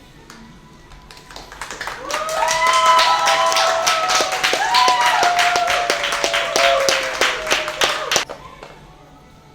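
A crowd clapping and cheering with whoops, swelling about two seconds in and cutting off abruptly near the end.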